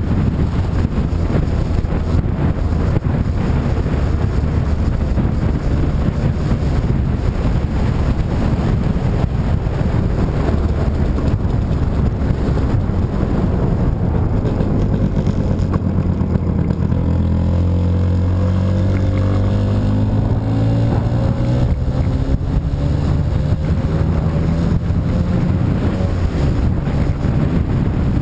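Motorcycle engine running on the move, under heavy wind rush on the bike-mounted microphone; its pitch drops and climbs again about halfway through as the speed changes.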